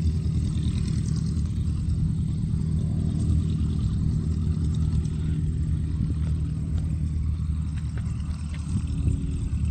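Bowers Fly Baby's small piston engine and propeller running at low power as the plane taxis, a steady low drone that eases off slightly near the end.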